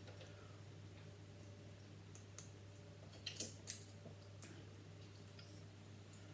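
A few faint, sharp clicks of plastic Lego pieces being handled and pressed together, several close together about three and a half seconds in, over a low steady hum.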